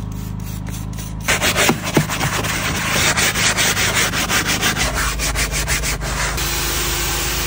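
A hand-held scrub brush scrubbing cloth car-seat upholstery in quick, rhythmic back-and-forth strokes, starting about a second in, over a steady low hum.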